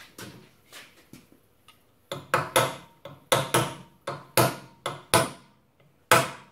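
Hammer striking a round punch to bend a lock-washer tab against a rear sprocket nut. A few light taps come first, then about two seconds in about a dozen sharp, ringing metal blows in quick groups of two or three.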